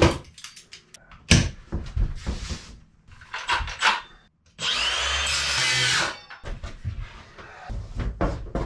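Circular saw spinning up with a rising whine and cutting through a sheet of plywood for about a second and a half, halfway in. Knocks and clatters of tools and wood being handled come before and after it.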